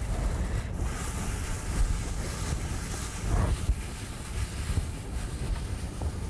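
A hand stirring and mixing a bowlful of folded paper slips in a glass bowl: steady rustling with a low rumble underneath.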